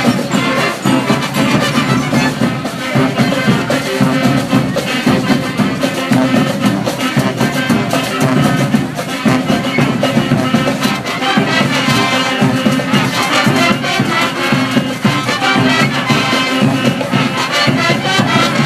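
School marching band playing: clarinets, flutes, saxophones and sousaphones over a steady percussion beat. The music stops abruptly right at the end.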